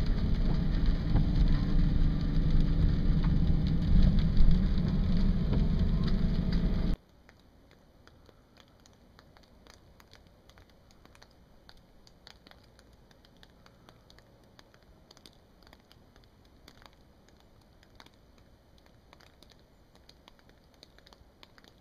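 Loud, steady outdoor rushing noise, heaviest in the low end, that cuts off suddenly about seven seconds in. After that there is only a faint hush with scattered small ticks.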